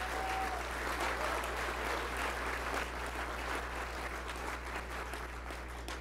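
Audience applauding, dying down near the end.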